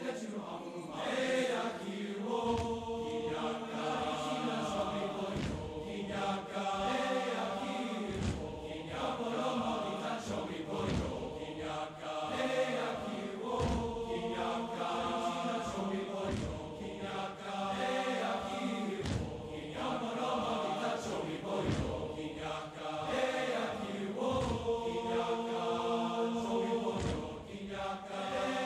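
Large men's and boys' TTBB choir singing in close harmony, with body percussion adding short low thumps about every second and a half.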